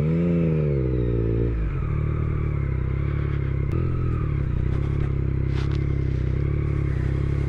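Motorcycle engine running at low speed under the rider. Its pitch rises and falls briefly in the first second and a half, then it runs on at a steady, even pitch.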